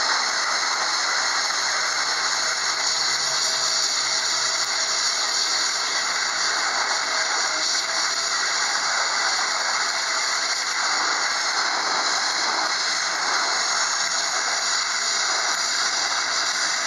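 High-pressure water jet from a Tsurumi HPJ-40BHPC2 high-pressure washer's lance blasting a concrete surface, a loud, steady hiss without a break. The jet is cutting laitance, stripping the weak surface skin off the concrete.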